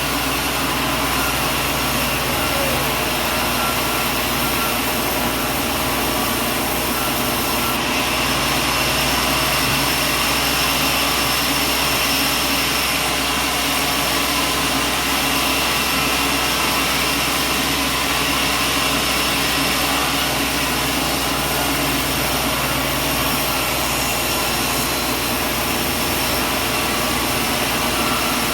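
Motor-driven machinery running steadily, a continuous drone with a constant high whine.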